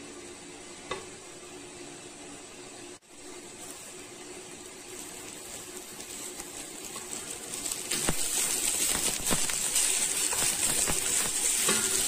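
Cooked rice frying in a pan, sizzling and being stirred, with small clicks through the sizzle; the sizzle builds and turns loud from about 8 seconds in. Before that there is a steady low hum and a single knock about a second in.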